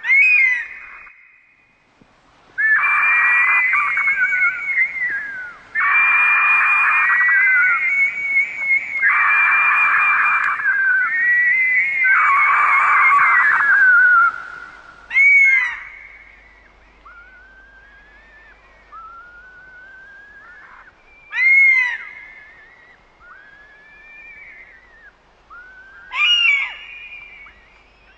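Birds of prey calling: four long, loud, high-pitched screams, each lasting about three seconds. These are followed by quieter short rising whistles and three sharp, down-slurred cries.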